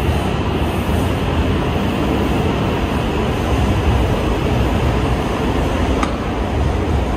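E5-series Shinkansen train moving past a station platform: a steady rumble of wheels and running gear, with a brief click about six seconds in.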